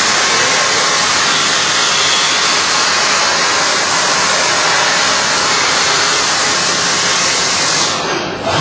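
CNC machine at work, giving a loud, steady rushing hiss that drops away near the end.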